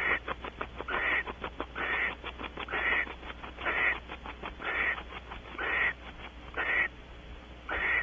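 Barn owl giving harsh, hissing screech calls about once a second, nine in a row, with quick clicks between the calls in the first half.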